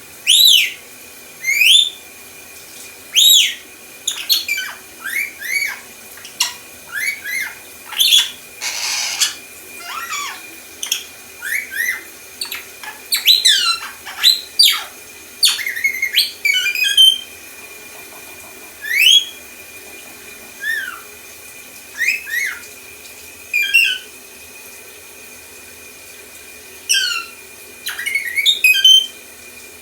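Pet lorikeet making R2-D2-style mimicry: quick swooping whistles, chirps and beeps that slide up and down in pitch, in irregular bursts with short pauses, and a brief hiss about nine seconds in.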